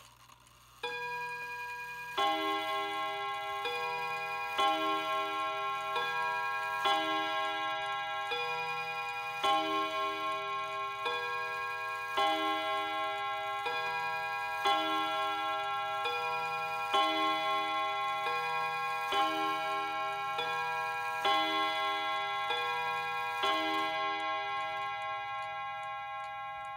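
Welby mantel clock chiming on the hour: struck chime notes about once a second, each ringing on into the next, fading out near the end.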